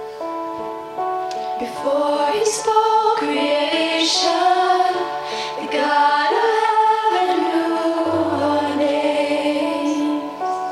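Live worship band playing: a woman sings lead, coming in about a second and a half in, over held keyboard and acoustic guitar chords, with low bass guitar notes entering near the end.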